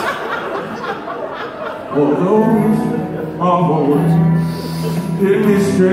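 Light laughter and chatter from a small audience, then about two seconds in, acoustic guitar and upright bass start a country-style song.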